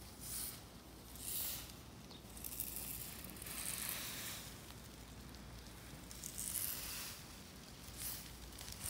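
Soft rustling swishes, a few in a row at uneven intervals, with a faint steady low hum underneath.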